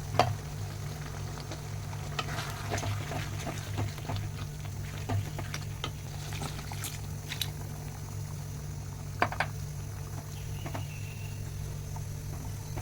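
Food cooking in a pan, bubbling with scattered light clicks of a utensil, a sharp click just after the start and a double click about nine seconds in, over a steady low hum.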